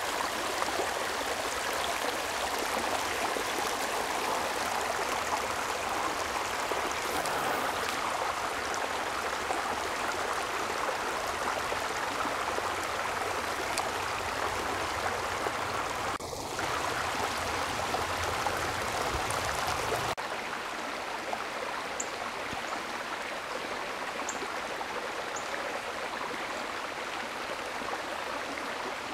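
Creek water running over a shallow riffle, a steady rushing; about twenty seconds in it drops a little quieter and loses its low rumble.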